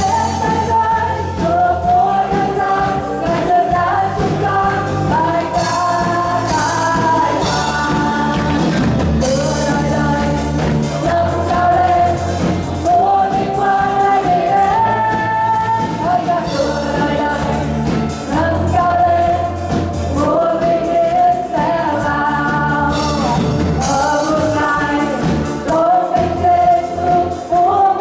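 A worship team of men and women singing a Vietnamese praise song in long held phrases, backed by a live church band with drums.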